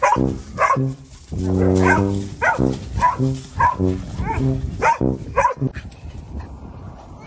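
A dog barking repeatedly, about nine barks at roughly two a second with one longer drawn-out bark among them, then stopping about five and a half seconds in.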